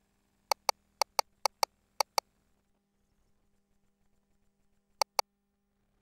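Ultrasound machine control-panel keys clicking as they are pressed and released: four quick pairs of sharp clicks in the first two seconds or so, then one more pair about five seconds in.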